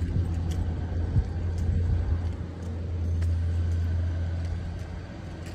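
Wind buffeting a phone's microphone outdoors, a low uneven rumble that swells and eases, with a few faint footstep clicks on stone paving.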